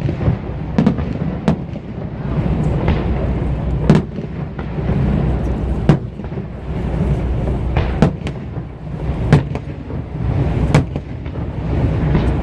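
Fireworks bursting overhead: a string of sharp bangs, one every second or two, over a steady low roar.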